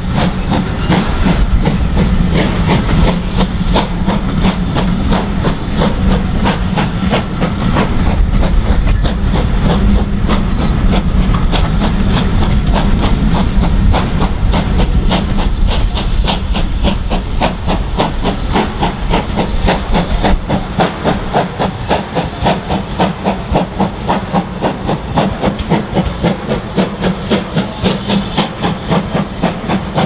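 Exhaust of the Caprotti-valve-gear BR Standard Class 5 4-6-0 steam locomotive No. 73129 working hard as it pulls away: a loud, crisp bark in an even rhythm. For the first part the rumble of the coaches rolling past sits under it; the beats stand out more clearly and ease a little in level near the end as the train draws away.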